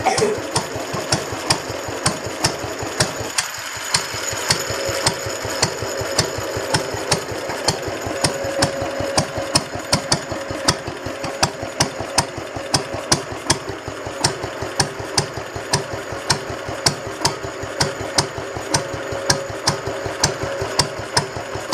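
1950 Lister D single-cylinder stationary engine running steadily, each firing a sharp beat, about three a second. It runs a bit rough.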